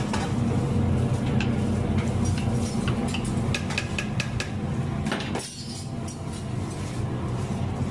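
Metal ladle clinking against an aluminium pot while pakoras are stirred into kadhi, with a quick run of sharp clinks about two to four and a half seconds in, over a steady low hum.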